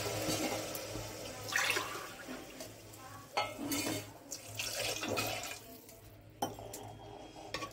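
Water poured from a tumbler into a pressure cooker of fried chana-matar masala, once at the start and again about three and a half seconds in, with a few knocks of the ladle and tumbler against the pot.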